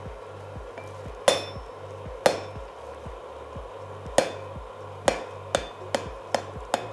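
Hand hammer striking a red-hot steel bar laid across a hardy cutter in the anvil, with the anvil ringing after each blow, to cut the bar off at a marked groove. Two strong, widely spaced blows come first, then a quicker run of lighter ones, about two a second, as the bar is rolled around in the groove.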